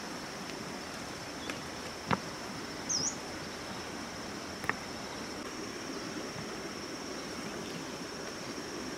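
Insects trilling, one steady high-pitched note, over a soft even background hiss; a few faint ticks and a brief chirp about three seconds in.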